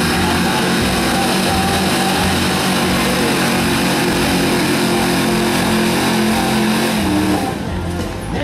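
A 1965 Ford stock gas pickup's engine running hard at full throttle under heavy load as it pulls a weight-transfer sled, holding a steady pitch; near the end the engine lets off and the sound drops away. Country music plays faintly underneath.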